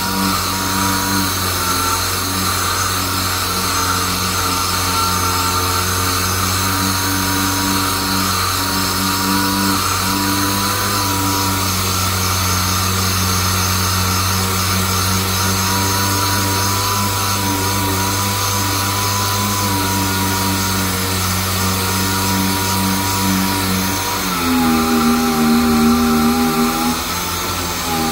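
Handheld power tool running steadily against a car's rear quarter panel. The motor holds a steady pitch; about 24 seconds in it drops in pitch and gets louder for a few seconds, then comes back up near the end.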